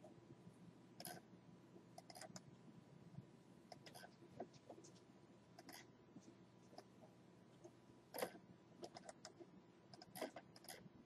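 Faint computer mouse clicks, scattered and irregular, with a couple of sharper ones about eight and ten seconds in, over a faint steady hum.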